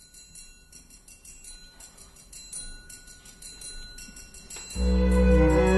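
Intro music: a faint, high tinkling bell-like shimmer that slowly grows, then a loud entry of full chords with deep bass near the end.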